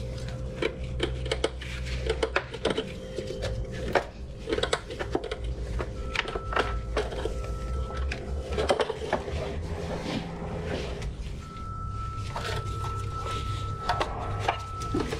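Irregular clicks, knocks and scraping of a BMW straight-six's valve cover being worked loose and lifted off the cylinder head, over a steady low workshop hum. A thin steady tone comes in about six seconds in, stops, and returns near the end.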